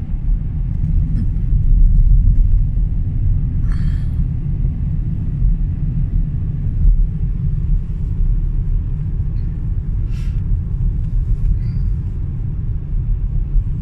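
Steady low rumble of a car driving on a snowy road, heard from inside the cabin, with a couple of faint short rustles.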